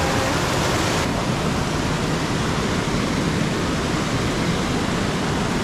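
Waterfall water rushing steadily.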